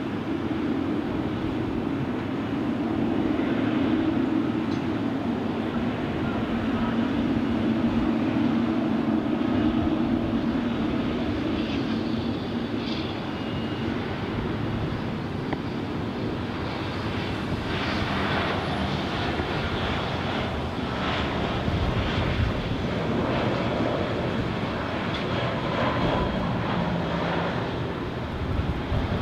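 Airbus A320 jet engines during a landing: a steady droning hum through the first half, giving way to a rougher rushing noise in the second half.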